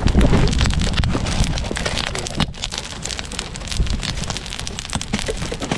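Wood campfire crackling, with many sharp snaps and pops over a steady hiss. Wind rumbles on the microphone near the start.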